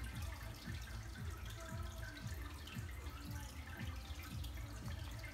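Karaoke backing track playing through the TV speakers, heard mostly as a low beat of about three thumps a second.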